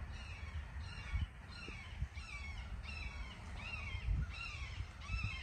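Hawks calling: a series of short, high cries that slide downward in pitch, about two a second.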